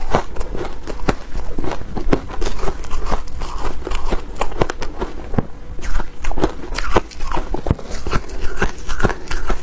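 Close-miked crunching and chewing of crumbly frozen shaved ice, a dense run of crisp irregular crackles several times a second.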